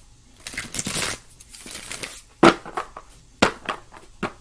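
A deck of oracle cards being handled and shuffled: a dry papery rustling for about the first two seconds, then several sharp taps as the cards are knocked and squared together.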